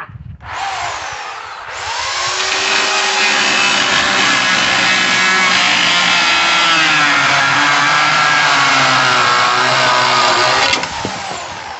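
Corded electric chainsaw running and cutting wood, its motor pitch sagging and recovering under load. It starts up right at the beginning, comes to full speed after a second or two, and cuts off sharply about a second before the end.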